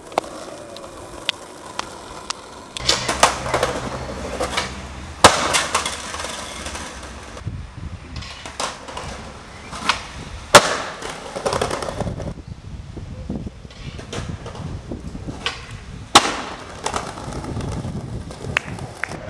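Skateboard wheels rolling on pavement, with the sharp clacks of tail pops and board landings several times over; the loudest clacks come about 5, 10 and 16 seconds in.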